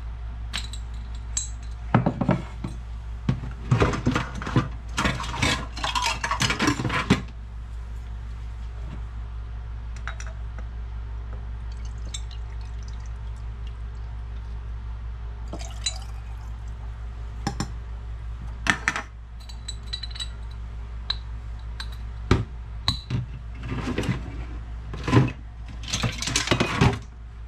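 Clinks and knocks of glass and kitchenware as a bottle, funnel and glass quart jar are handled and set on a wooden counter, in clusters near the start, midway and near the end, with vinegar poured through a funnel into the jar.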